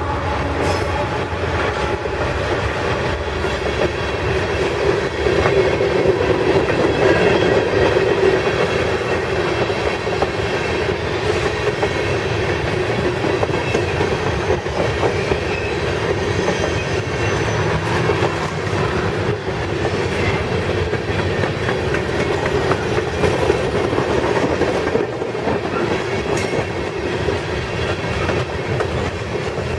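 Freight cars of a sulfur train rolling past, a steady noise of steel wheels running on the rails.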